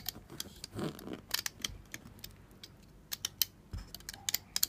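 Irregular sharp clicks and snaps as a finished chain of silicone loom bands is pulled off the pegs of a plastic loom with a metal hook.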